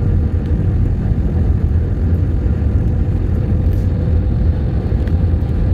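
Steady low rumble of a jet airliner cabin in flight, from the engines and rushing air, with a faint steady tone running through it.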